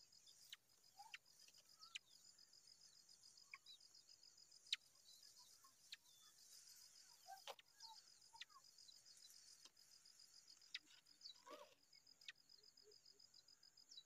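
Faint, high, steady insect trill with a rapid, even pulse, dotted with scattered short clicks and chirps, and a brief rustle about three-quarters of the way through.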